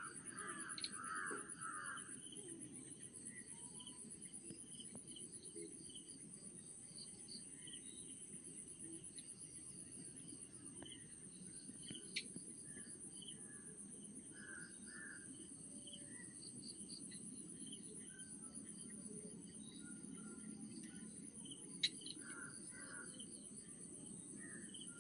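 Steady, high-pitched trilling of insects in the background, with scattered short chirps and two sharp clicks, one about halfway through and a louder one near the end.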